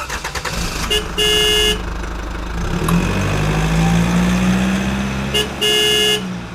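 A motor vehicle engine running, swelling in the middle and fading away at the end, with a horn honking twice: a short tap and then a half-second blast about a second in, and again near the end.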